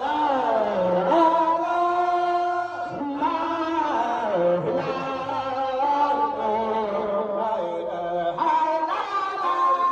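Group of men chanting a dhikr together, hands cupped over their ears, with long held notes that slide from pitch to pitch and a short break about three seconds in.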